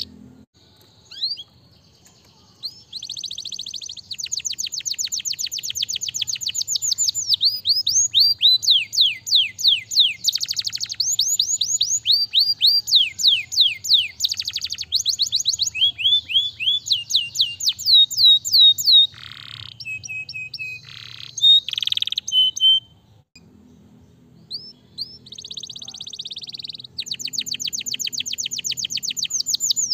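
Domestic canary singing in long rolling trills of fast repeated chirps, with changes of phrase and brief pauses about two seconds in and again around twenty-three seconds.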